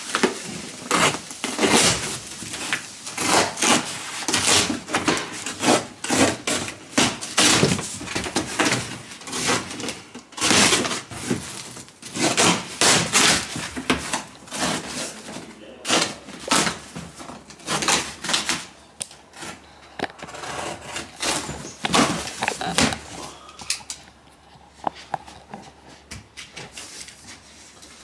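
Large corrugated cardboard carton being cut open with a box cutter and its flaps torn and pulled back: irregular crackling, scraping and ripping of cardboard, quieter near the end.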